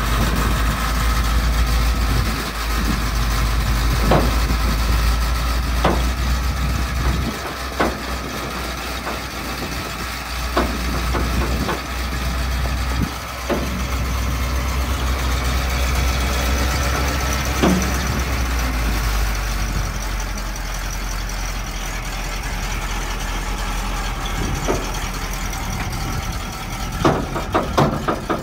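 1971 Chevrolet C50 dump truck's engine running while the hydraulic hoist raises and then lowers the dump bed, with a few sharp clunks along the way. The deep rumble eases a little past halfway.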